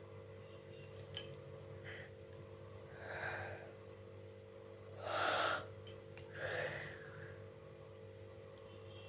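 A person yawning: a breathy yawn about three seconds in, a louder one around five seconds in, and a shorter one right after. A faint steady hum runs underneath, and there is a sharp click about a second in.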